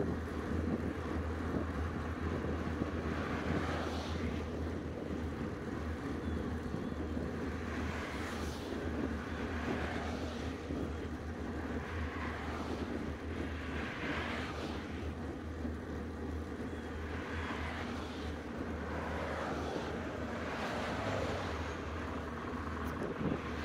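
Wind rushing over the microphone of a handlebar-mounted camera on a moving bicycle: a steady low rumble, with brief swells of hiss every couple of seconds.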